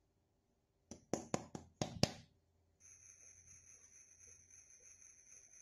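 About six quick, sharp metallic taps against a stainless steel bowl, then a steady high hiss starts about three seconds in.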